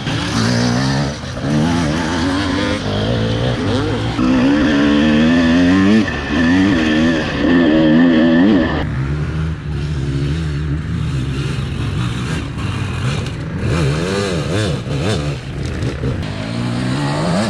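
Dirt bike engines revving hard through a race, pitch repeatedly climbing and dropping with throttle and gear changes. The sound shifts about nine seconds in to a lower, steadier-running engine.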